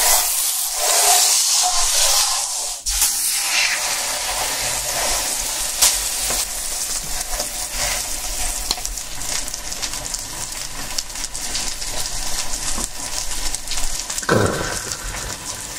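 Hanwoo beef steak sizzling steadily in hot oil on a flat griddle, with fine crackles and one sharp pop about six seconds in.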